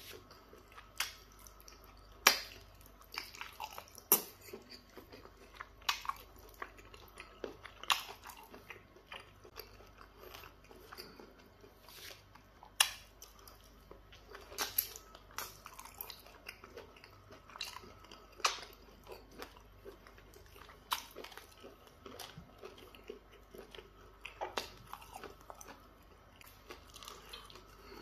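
Close-miked eating sounds of someone eating pounded yam fufu dipped in peanut butter soup by hand: wet chewing and mouth noises broken by sharp smacking clicks at irregular intervals, every second or two.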